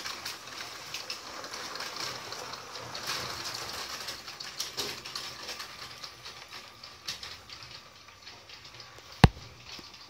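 LEGO remote-control trains running on plastic LEGO track: a steady whirring rattle of motors and wheels with many small clicks, slowly fading. One sharp, loud knock comes a little after nine seconds in.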